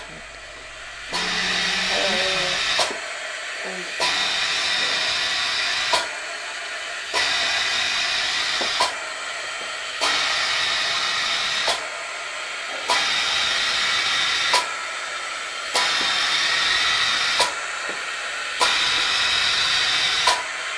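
Breathing through an anesthesia machine's tube and corrugated breathing hose: a steady rhythm of hissing airflow, louder and softer phases alternating, about one breath every three seconds. Each louder phase ends with a sharp click, seven in all.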